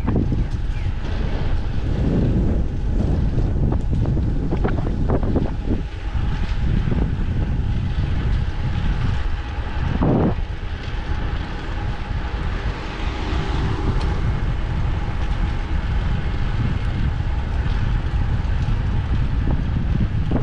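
Wind noise on the microphone of a camera riding along on a moving bicycle: a steady, heavy rush, strongest in the low end. Several brief knocks break through it, the strongest about ten seconds in.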